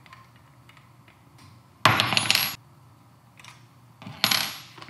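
Small metal parts clinking and rattling as an angled hand stop is fitted to a rifle's M-LOK handguard: two short bursts, about two seconds in and again near the end, each with a brief high metallic ring, between faint ticks of handling.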